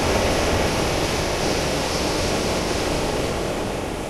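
Dense, surf-like wash of noise resynthesized by a phase vocoder from a smeared spectrogram image of a female voice, with no pitch or words left in it. It holds steady and eases off slightly near the end.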